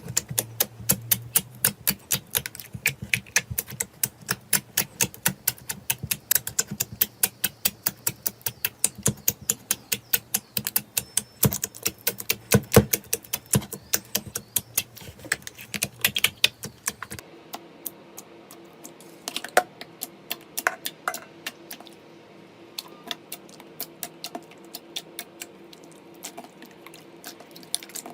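Slime being squeezed and poked, making a fast run of sharp clicking pops, several a second. About two-thirds of the way through, the clicks change to fewer, softer scattered pops.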